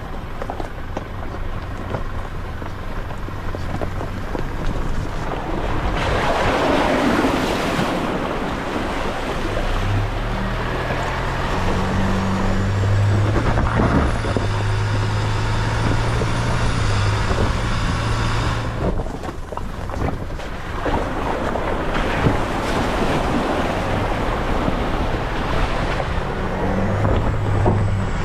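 Four-wheel-drive vehicle's engine running as it is driven along a rough off-road track, with loud stretches of rushing noise over it.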